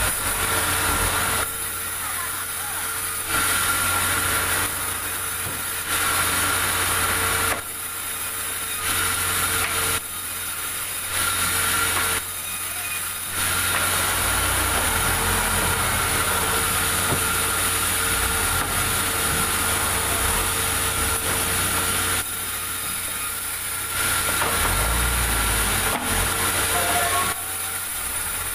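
Sawmill saw running and cutting through large logs. Louder noisy stretches of one to two seconds alternate with quieter running over a steady machine hum, then a longer cut runs for about eight seconds through the middle.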